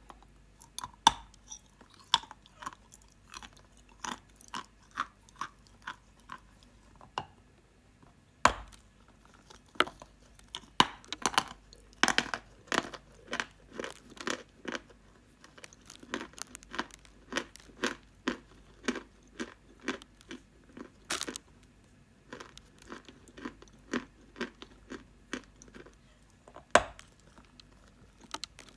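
Close-miked chewing of a dry, crunchy piece, with crisp crunches about two a second and a few sharper, louder bites among them.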